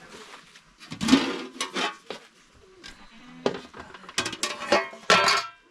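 Metal cookware clattering: a series of knocks of a utensil or lid against a metal pot, a few of them ringing briefly, bunched about a second in and again in the last two seconds.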